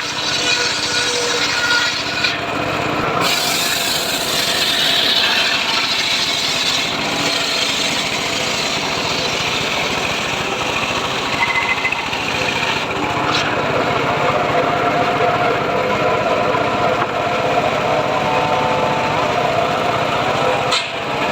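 Home-built circular saw cutting through teak wood: a steady rasping saw noise with a whine under it that wavers in pitch as the blade works through the cut.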